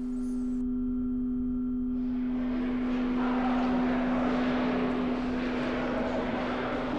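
A steady low drone tone, joined about two seconds in by a rushing noise that swells up and holds.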